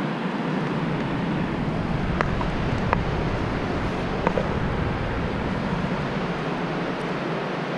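Wind buffeting the camera's microphone: a steady rushing with a low rumble. A few faint clicks come about two to four seconds in.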